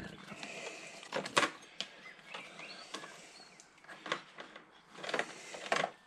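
Wiring being handled and plastic wire connectors pushed together behind a motorcycle's front fairing: a low rustling with several sharp clicks.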